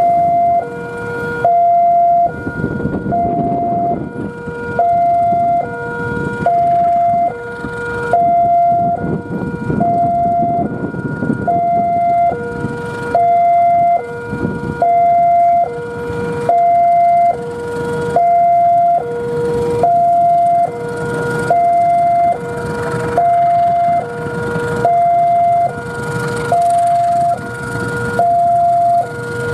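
A two-tone warning alarm, a higher and a lower tone alternating about every three-quarters of a second, over the low rumble of a diesel locomotive drawing a passenger train slowly in.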